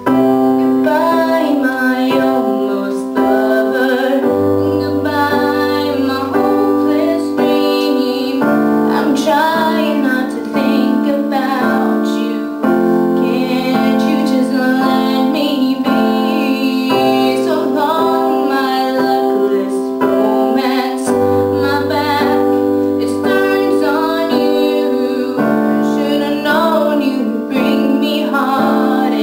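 A young woman singing a slow ballad to piano accompaniment, held chords and bass notes changing every few seconds under the sung melody.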